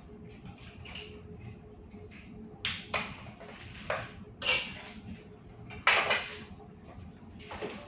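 Short clinks and clatters of tableware and drink cans knocked on a table as people eat, about six in all, the loudest about six seconds in, over a faint steady hum.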